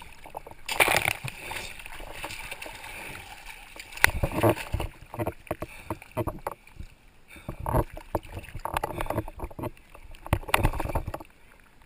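Seawater splashing and sloshing against a camera bobbing at the surface, in irregular bursts, with a sharp knock about four seconds in.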